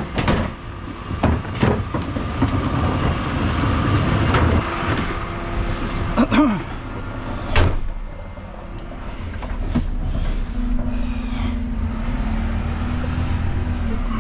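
Bin lorry at work: the truck's running noise with sharp knocks and clanks of wheelie bins at the rear lifter. After about eight seconds it turns to the diesel engine heard from inside the cab as the truck drives on, with a steady hum setting in about ten seconds in.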